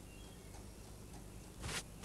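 Cartoon sound effect of a tuft of fur being yanked out: one short rasping rip near the end. A faint clock ticks underneath.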